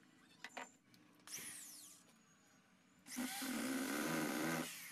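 Power drill running in two bursts after a couple of light clicks: a short run about a second in that winds down in pitch, then a longer, louder run of about a second and a half starting around three seconds in.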